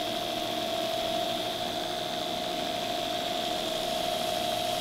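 Belt grinder running steadily with a steady whine, as a steel knife blade is held against the belt on a small contact wheel to clean up its rough profile edges.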